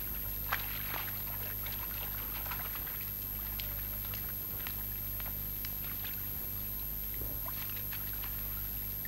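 Quiet background of a steady low electrical hum with faint, scattered ticks and crackle: the noise floor of an old film soundtrack, with no speech.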